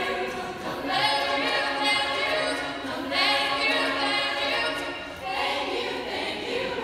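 All-female a cappella group singing: a female soloist sings phrases over sustained backing harmonies from the other voices.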